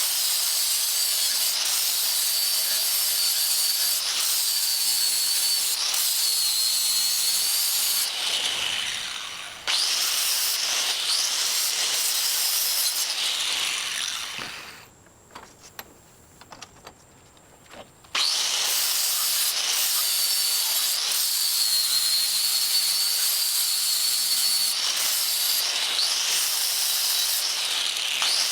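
Angle grinder grinding the edges of a steel sword blank, a steady hiss of abrasion over a wavering high whine as the disc bears on the metal. About 14 s in it winds down to near quiet for a few seconds, then starts again abruptly.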